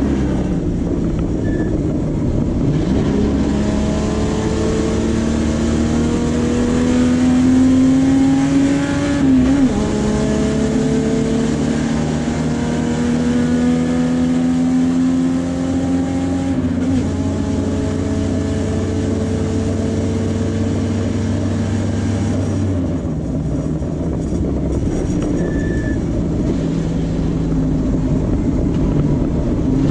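In-cabin sound of a Puma GTB race car's Chevrolet straight-six engine under full throttle, its pitch climbing through the gears with upshifts about 9 and 17 seconds in. About 23 seconds in the driver lifts off and brakes for a corner, and the engine note drops. It picks up again near the end.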